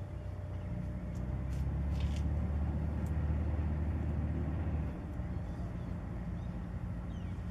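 Low, steady drone of an inland cargo ship's diesel engine, swelling for a few seconds and easing off a little about five seconds in.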